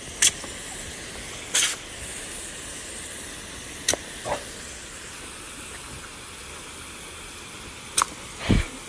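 Garden hose spray nozzle hissing steadily as it sends out a jet of water. About six brief sharp sounds break over the hiss.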